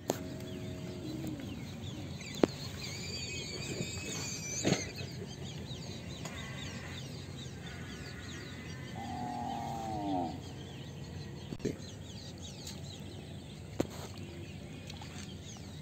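Birds calling outdoors: a wavering high call of a second or so about three seconds in, and a lower, bending call near nine seconds, over scattered small chirps. A few sharp knocks come through as a woven bamboo fish trap is handled.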